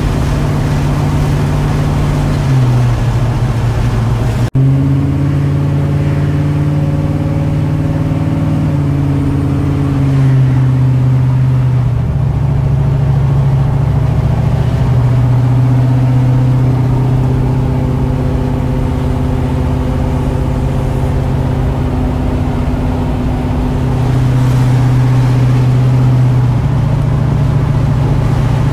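A 1982 Chevrolet C10's 350 V8 with dual exhaust running steadily as the truck cruises on the highway, heard from inside the cab over tyre and road noise. The engine note steps up or down several times as speed changes, and there is a brief break about four and a half seconds in.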